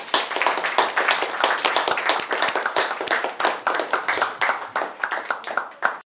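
Audience applauding, many hands clapping densely and irregularly. The applause thins slightly toward the end, then cuts off abruptly.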